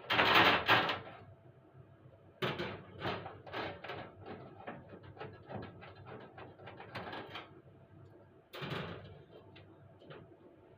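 Household handling noises: a series of clatters, knocks and rubbing sounds. The loudest burst comes at the start and another about eight and a half seconds in.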